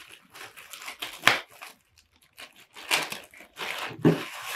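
Clear plastic bag crinkling and rustling in irregular bursts as it is pulled open and a folded shirt is worked out of it.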